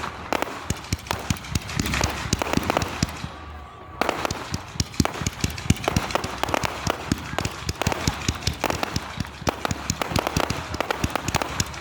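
Fireworks display going off in a dense, rapid run of crackling pops and bangs, with a short lull about three seconds in before the pops resume abruptly.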